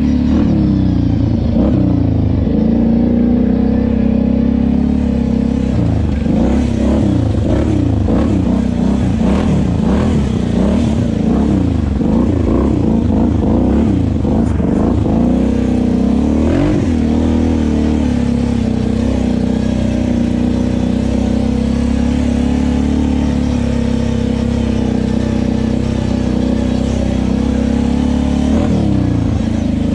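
Kawasaki KFX 700 ATV's V-twin engine being ridden, revving up and down over and over, its pitch rising and falling every second or so over a steady low rumble.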